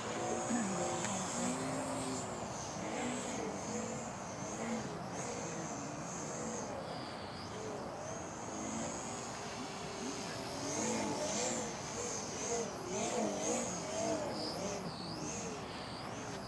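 Radio-controlled Slow Stick X model airplane's motor and propeller whining in flight, the pitch wavering up and down throughout.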